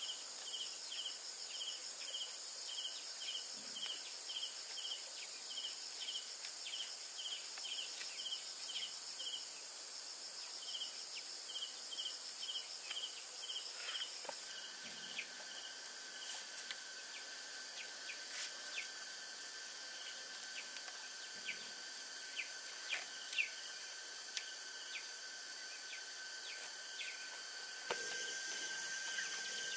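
Insects chirping and droning: steady high buzzing with a repeated chirp about two to three times a second. About halfway through, the high drone drops away and a lower steady trill takes over. A few faint clicks come through later on.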